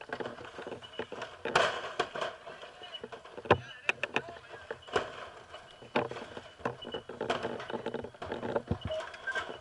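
Irregular knocks and clatter from firefighters' hand tools and footing on a roof during vertical ventilation, a sharp hit every half second to second or so.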